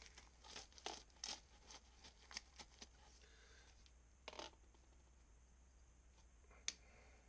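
Faint scrapes and light clicks of a plastic torpedo level being shifted and set down on a PVC shower drain flange to check that it sits level. There is a louder scrape about four seconds in and a sharp click near the end, over a low steady hum.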